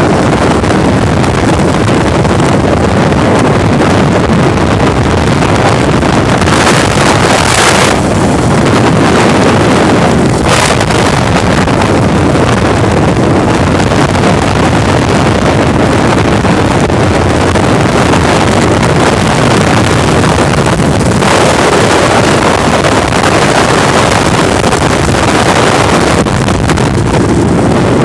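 Strong wind blowing straight onto the microphone, a loud, steady rush with brief stronger gusts about seven and ten seconds in.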